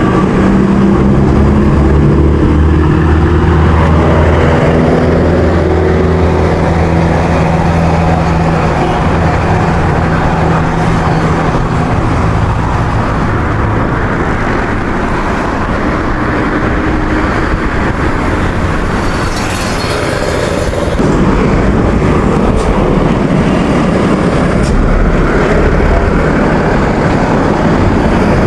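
Road traffic heard from a moving bicycle: a motor vehicle's engine running alongside with a steady low hum for about the first half, fading out, over a constant rushing noise of traffic and moving air.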